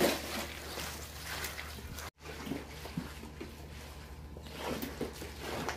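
Rubber-gloved hands tossing and squeezing cabbage leaves with chili seasoning in a plastic basin, making a wet rustling and squelching. A steady low hum runs underneath, and the sound breaks off for a moment about two seconds in.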